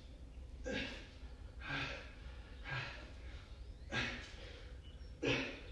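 A man breathing hard from exertion: five sharp, noisy exhales about a second apart.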